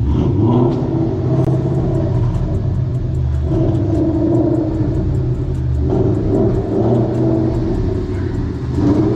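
Car engine and exhaust running, the note swelling and easing a few times over a steady low rumble, on the exhaust that is about to be replaced.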